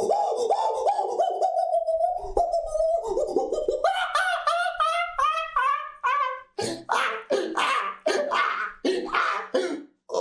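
A person's wordless vocalising: a held, rapidly pulsing pitched sound, then a rising run of short notes, then short separate yelps with gaps between them.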